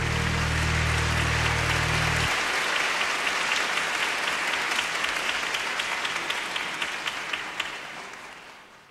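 Audience applauding, with the closing music's low notes stopping about two seconds in. The clapping thins to a few separate claps and fades out near the end.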